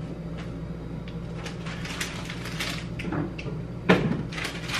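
Groceries being handled and put into a Whirlpool mini fridge, with packaging rustling and light clicks, and the fridge door opening. There is one sharp knock about four seconds in, over a steady low hum.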